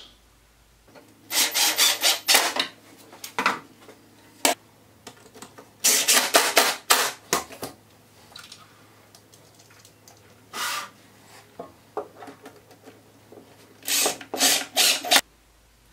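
Wood rubbing and scraping on wood in several short strokes, as a wooden drawer is slid along wooden runners and fitted into the frame. Near the end come a few short bursts as a cordless drill drives screws into the plywood runner panel.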